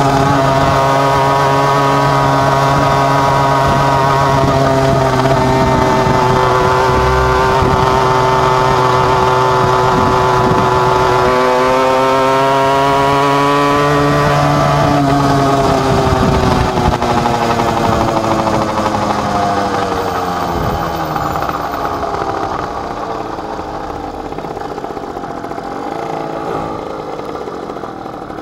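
Dadalt MR 60 minimoto's two-stroke engine running under way at a steady high pitch, rising a little, then easing off about halfway through so the pitch falls and the sound gets quieter toward the end.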